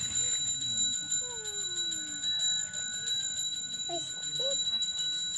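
Balinese ritual handbell (genta) rung continuously: a steady, high, bright ringing that keeps going without a break.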